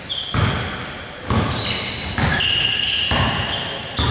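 A basketball is dribbled on a hardwood court, about one bounce a second with five bounces in all, each thud echoing in the hall. High sneaker squeaks sound between the bounces.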